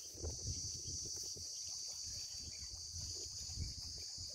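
Insects chirring in a steady, high-pitched continuous chorus, with wind buffeting the microphone in low, uneven gusts.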